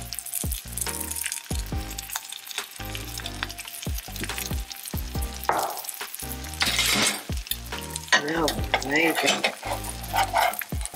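Bread slices for a cheese sandwich sizzling as they fry in a stainless steel frying pan, with a spatula moving against the pan.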